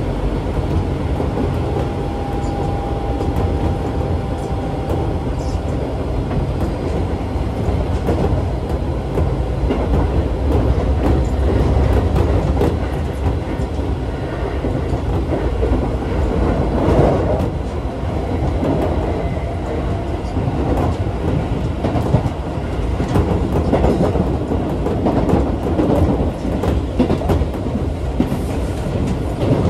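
Keisei 3400 series electric commuter train running at speed, heard from inside the car by the doors: a steady rumble of wheels and running gear with the clickety-clack of rail joints, and a louder run of clacks about 17 seconds in. A faint steady whine sounds for a few seconds early on.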